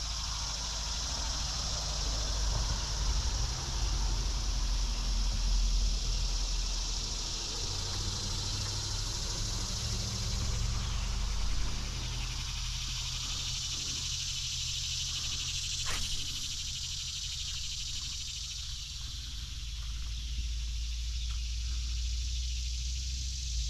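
Outdoor creek-side ambience: a steady high hiss over a low rumble, with one sharp click about two-thirds of the way through.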